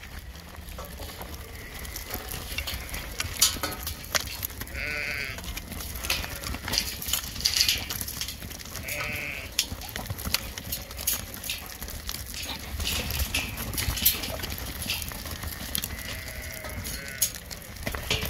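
Pen of Border Leicester rams: a few short bleats, over the clicks and knocks of the flock shuffling and jostling on the dirt.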